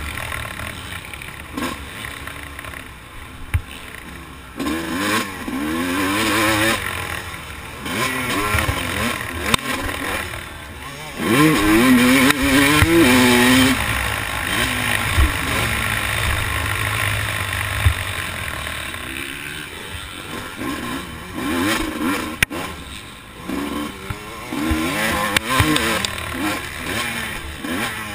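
Motocross dirt bike's engine heard from the rider's helmet camera, revving up and dropping back again and again as it accelerates and shifts around the track, loudest about halfway through, over a steady rush of wind, with a few sharp knocks.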